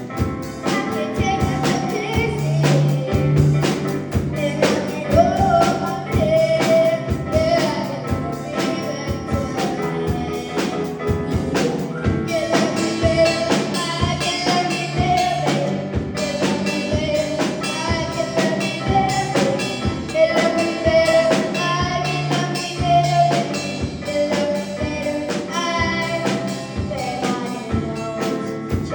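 A solo singer sings a pop song over a backing of drums and other instruments, holding and sliding between notes against a steady drum beat.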